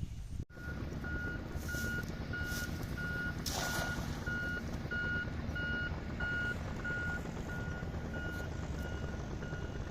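A vehicle's reversing alarm beeping, a steady high tone about twice a second, over a low steady rumble. A short hiss comes in near the middle.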